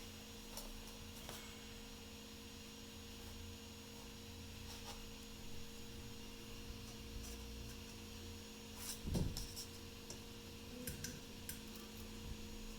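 Faint clicks and scrapes of a small screwdriver tightening the tiny M1.6 screw that holds a SiPM circuit board, over a steady electrical hum; one louder knock about nine seconds in.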